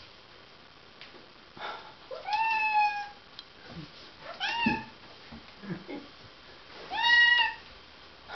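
A domestic cat meowing three times, each call rising and then falling in pitch. The first comes a bit over two seconds in and the last near the end.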